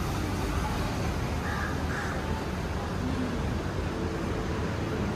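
Steady city street noise of passing traffic, with two short higher-pitched calls about one and a half and two seconds in.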